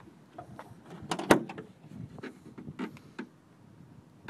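Hood of a 1981 Volkswagen Rabbit pickup being opened by hand: a sharp metal clack from the hood latch about a second in, then several lighter knocks and rattles as the hood is lifted and propped.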